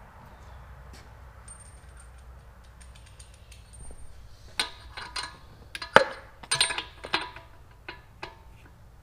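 A burst of light metallic clinks and clicks, with one sharp knock in the middle, as small parts and tools are handled while a new spark plug is fitted to a small engine.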